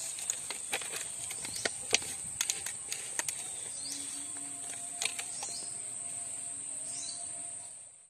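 Insects trilling steadily at a high pitch, with scattered sharp clicks and rustles of hands working in grass and a few short chirps. The sound fades out at the very end.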